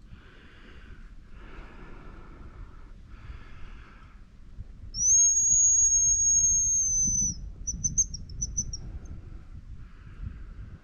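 Hazel grouse whistle call blown loud and close: one long thin high note that drops off at its end, followed straight away by a quick stuttering run of short high notes. This is the hazel grouse song pattern used to lure the birds. Heavy rhythmic breathing runs before and after it.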